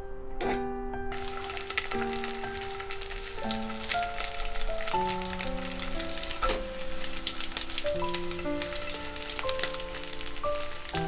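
Rice balls frying in oil in a pan: a dense sizzle full of small crackles that starts suddenly about a second in. Soft piano music plays along with it.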